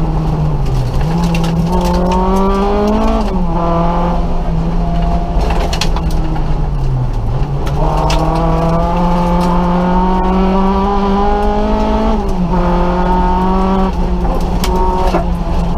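Nissan Micra rally car's engine heard from inside the cabin at speed. The revs climb steadily, twice, and each climb ends in a sharp drop, as at a gear change. Steady road noise and a few sharp clicks run underneath.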